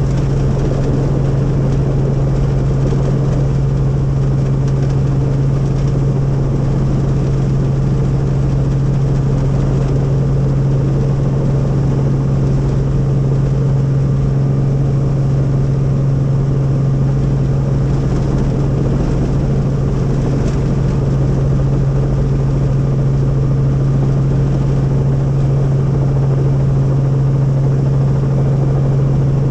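Helicopter engine and rotors running steadily, a constant low hum with a wash of noise over it.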